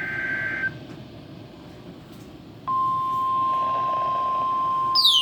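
Weather radio sounding an Emergency Alert System severe thunderstorm warning: a SAME digital header burst of two alternating high tones ends about half a second in. After a short stretch of receiver hiss, the loud, steady single-pitch 1050 Hz NOAA Weather Radio warning alarm tone starts about two and a half seconds in. Just before the end, a falling pitch sweep begins over it.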